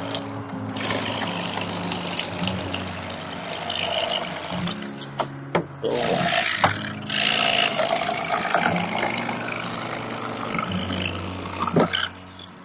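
Electric fillet knife's motor buzzing steadily as its serrated blades cut a crappie fillet off along the backbone, the pitch shifting a few times as the blade loads up.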